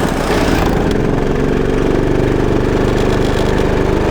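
Go-kart engine running at a steady, even pitch.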